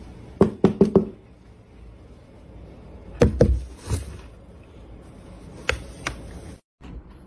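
A run of knocks: four quick sharp knocks, then a louder cluster of thuds about three seconds in, and two lighter taps after that.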